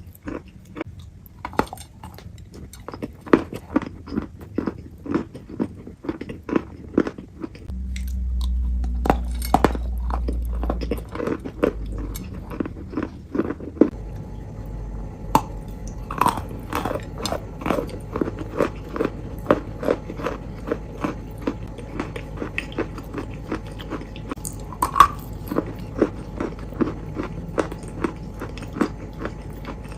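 Close-up crunchy chewing and biting, a run of crisp crunches coming about two a second, with a low rumble for a few seconds about a third of the way in.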